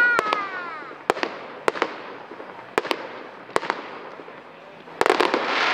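Fireworks display: aerial shells bursting in sharp bangs about once a second. At the start there is a falling whistle from a whistling shell, and about five seconds in comes a rapid cluster of bangs.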